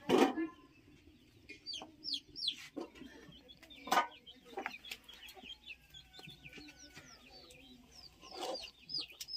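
Domestic chickens clucking, with a run of short high peeps. Three louder sharp sounds come right at the start, about four seconds in, and near the end.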